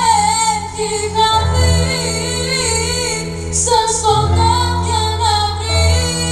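Music: a female vocalist sings long, held notes with vibrato over sustained chords and a steady bass line.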